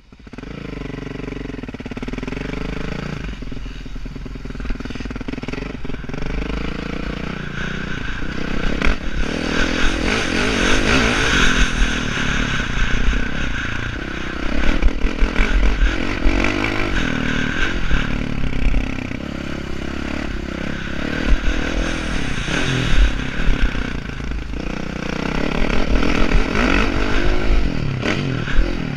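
Motocross bike engine heard from the rider's helmet, revving up and dropping back over and over as it accelerates and shifts around the track, with clatter from the bike over the rough dirt.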